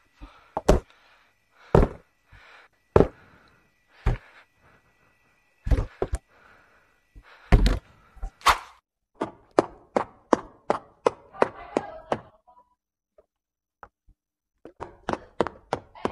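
Sharp knocks and thunks of bottles, plastic basket shelves and the glass door of a smart vending fridge being handled, irregular at first, then a quicker run of light clicks, about three a second, from about nine to twelve seconds in. A faint steady high tone runs under the first half.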